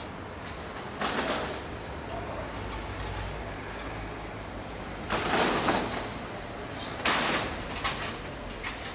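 City street ambience: a steady low traffic hum, with several short noisy sounds about a second in, around five seconds in and again around seven seconds in.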